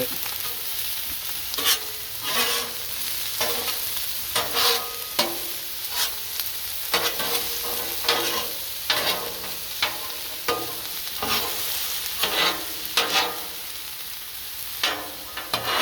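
Chicken and vegetables sizzling on a Blackstone griddle while being stirred, with a utensil scraping and tapping on the steel cooktop about once a second over a steady frying hiss.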